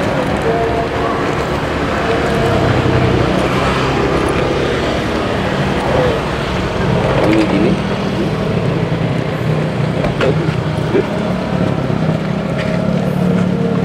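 Motor vehicle engines running steadily, a continuous traffic-like drone, with voices in the background.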